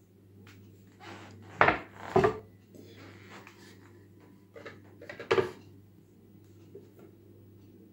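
A grooved MDF board being handled on a tabletop: a few sharp wooden knocks and scrapes, the loudest about a second and a half and two seconds in, and another just after five seconds as it is laid down flat.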